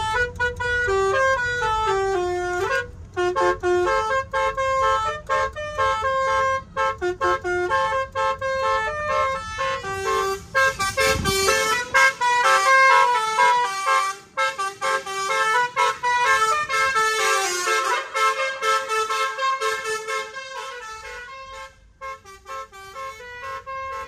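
Bus telolet basuri air-horn module playing a fast multi-note melody, its horn notes stepping up and down several times a second. A low engine rumble runs under the first half and stops about halfway through.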